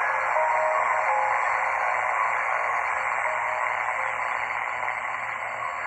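Zenith Royal 20 transistor radio's small speaker giving a steady static hiss, with faint shifting tones, between stations.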